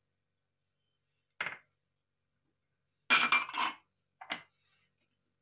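Metal spoon clinking against a pressure cooker as spices are tipped in: a single clink about a second and a half in, then a louder cluster of ringing clinks around three seconds in and one more just after.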